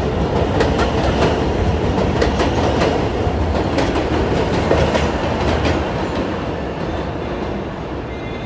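New York City subway train running past on the track, its wheels clacking rapidly over rail joints with a heavy rumble. The clacking thins out about six seconds in and the sound fades as the train moves away.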